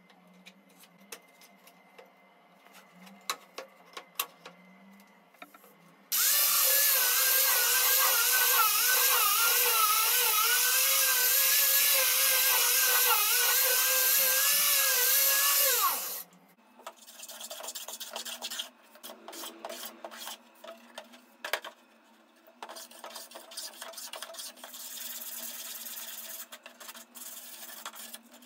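Small angle grinder fitted with a sanding pad, sanding a pine tabletop: it starts about six seconds in with a steady whine whose pitch wavers as the pad is pressed on the wood, then winds down with a falling pitch about ten seconds later. Before it come light clicks and knocks of the wooden folding legs being handled. After it come irregular rasping strokes of sandpaper rubbed by hand over the wood.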